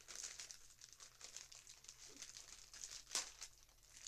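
Crinkly toy packaging being handled and pulled at as a toy car is unwrapped, a steady run of small crackles with one sharper, louder crackle about three seconds in.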